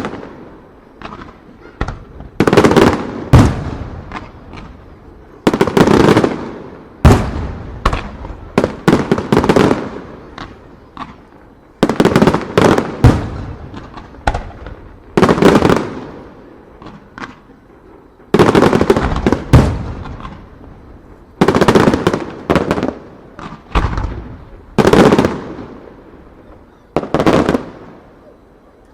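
Aerial firework shells bursting in quick succession, a sharp bang every second or two, each fading out in an echoing rumble, with a brief lull near the end.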